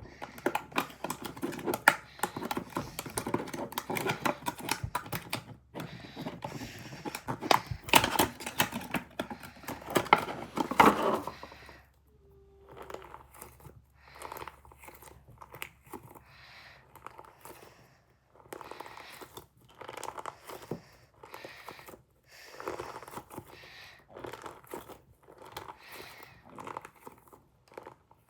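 Crunchy strawberry slime being squeezed and pressed by hand, a dense crackling and popping, loudest in the first twelve seconds and then softer, separate squishes. A brief stomach growl about twelve seconds in.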